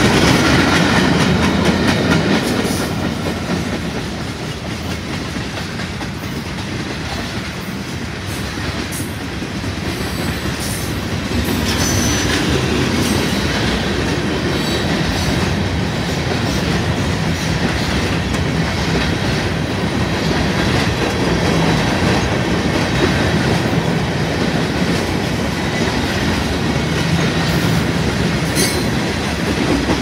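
Freight cars of a manifest train rolling past at speed, steel wheels running on the rails. The sound eases off for a few seconds and then grows louder again from about eleven seconds in.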